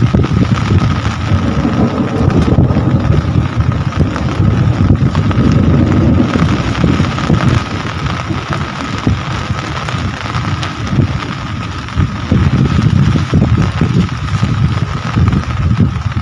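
Heavy rain falling steadily, with a low, gusty rumble of wind buffeting the microphone and a thin steady tone underneath.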